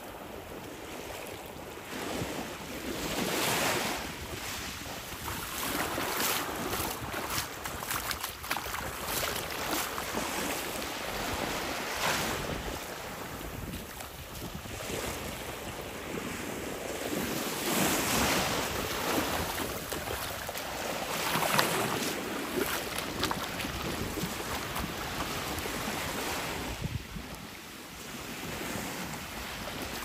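Small lagoon waves washing up on a sandy shore, swelling and fading every few seconds, with wind buffeting the microphone.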